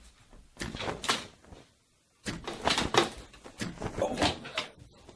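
A string of knocks and clatters, like a door or cupboard being handled: a few sharp hits about half a second in, then a busier run of knocks from just past two seconds until near the end.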